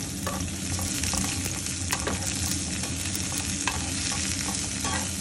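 Sliced onion, red chillies and garlic sizzling steadily in hot oil in a nonstick pan, stirred with a plastic slotted spatula that scrapes and taps against the pan every second or so.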